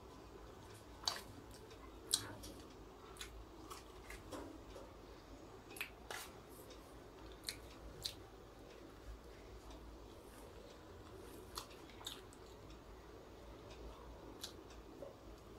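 Close-up chewing of crispy fried chicken, with scattered sharp crunches and mouth clicks about one to two seconds apart, the loudest about two seconds in.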